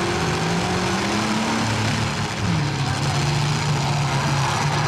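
Demolition derby trucks' engines revving, their pitch rising, dipping about two and a half seconds in, then holding, over a steady noisy din.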